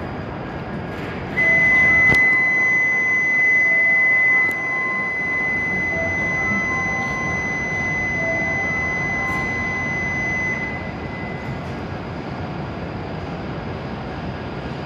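A steady, high electronic buzzer tone starts about a second and a half in and holds for about nine seconds, louder for its first three seconds. It is the platform's departure signal for the E7 series shinkansen standing at the platform, heard over the train's and station's steady hum.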